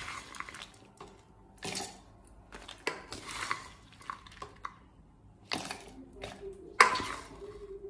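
A spatula scraping and tapping roasted spices out of a pan into a stainless steel mixer jar: irregular clinks and scrapes against metal with short pauses between them, the sharpest clink near the end.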